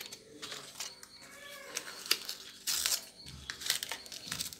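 Paper flan-mix sachets crinkling and tearing open, in short rustling bursts as the powder is shaken out onto a plate. A little after a second in, a brief pitched call rises and falls.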